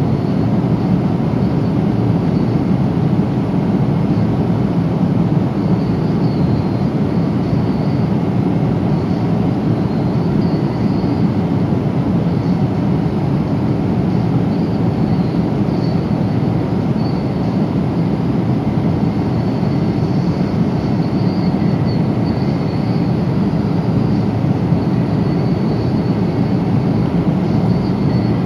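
Steady cabin noise inside a Boeing 777-300 at cruise: a deep, even rush of airflow and engine drone, with a faint high whine above it.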